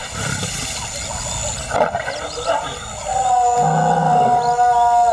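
African lioness calling to her pride: one long, pitched call that starts about three seconds in and lasts over two seconds.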